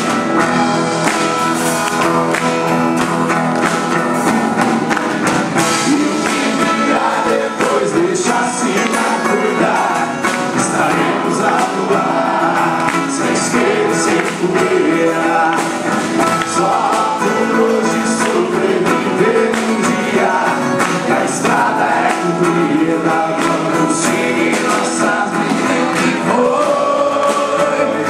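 A band playing a song, with voices singing over steady percussion.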